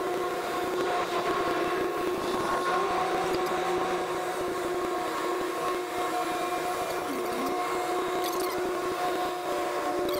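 Semi truck running and moving slowly, heard from inside the cab: a steady mechanical hum with several held tones.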